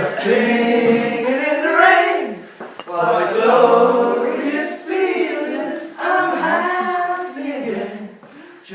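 A group of male and female voices singing together, in phrases of one to two seconds with short breaks between them.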